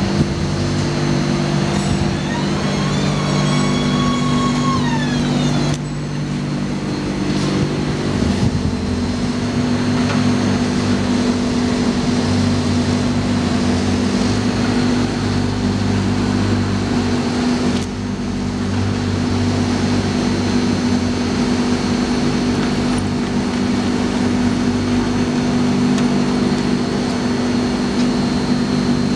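Tram standing at a stop, its on-board electrical equipment humming steadily in several low tones. A higher whine rises, holds and falls back from about two and a half to five and a half seconds in.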